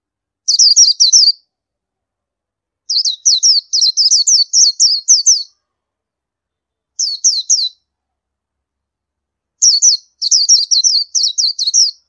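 Oriental white-eye singing: four bouts of rapid, high, downward-sliding notes, with short silent pauses between the bouts.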